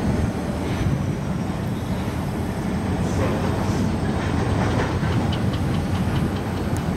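Union Pacific diesel locomotives rumbling steadily as they move along the track, with light clicking of wheels over the rails about two-thirds of the way through.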